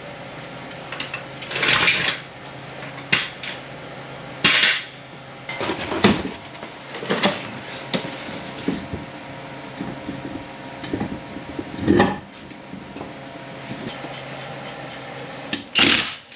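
Metal parts and tools being handled: about a dozen irregular clinks, clanks and scrapes over a faint steady hum, with the loudest knocks about two, four and a half, six, seven and twelve seconds in and near the end.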